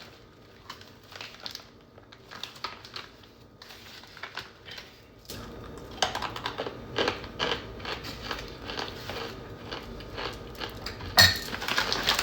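Blocks of cornstarch being crunched and crumbled by hand, a stream of irregular crisp crackles and clicks. It is soft at first, grows louder and denser after about five seconds, and ends with one sharp loud crack near the end.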